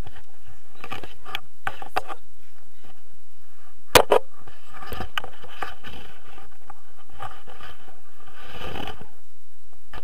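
Clicks and rustling of paragliding harness buckles, carabiners and clothing as a tandem passenger is being unclipped from the harness. The sharpest click comes about four seconds in.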